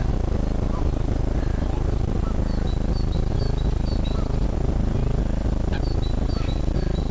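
A small bird gives a series of short, high chirps, about three a second, over a steady low rumble of wind or distant traffic.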